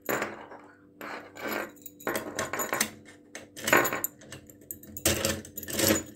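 Metal clicking and scraping of a key going into and turning in a lever (warded-lever) mortise lock, with the bunch of keys jangling on their ring, in a series of short irregular clicks; the lock works normally and the bolt is thrown.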